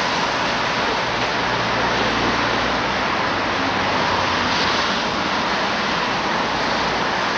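Steady rushing street noise: wind on the microphone mixed with traffic, with a coach bus's diesel engine running low beneath it as the bus starts to pull away.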